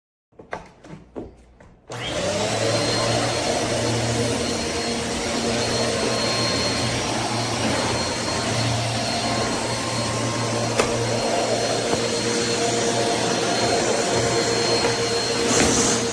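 A few short knocks and clicks, then about two seconds in an Eureka Airspeed NEU10AE4 bagless upright vacuum cleaner switches on and runs steadily with a faint high whine over its motor hum.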